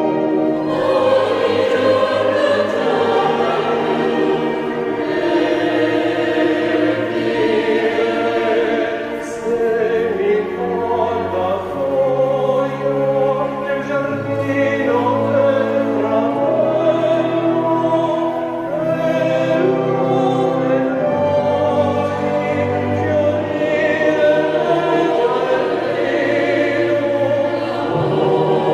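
A tenor singing an operatic aria with vibrato, accompanied by orchestra and choir, over long held low notes in the orchestra.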